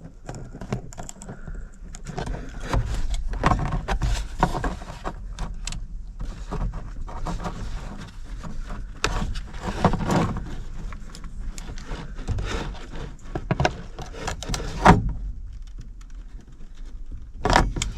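Small metal parts clicking, rattling and scraping by hand as a nut is threaded onto a panel-mount momentary switch over a pair of washers and tightened, with a sharper knock about 15 seconds in.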